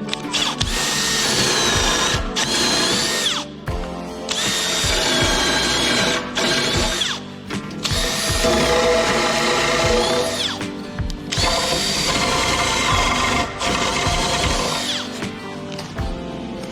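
A handheld power tool cutting timber runs four times, each run about three seconds with a high whine that drops as it spins down, over background music.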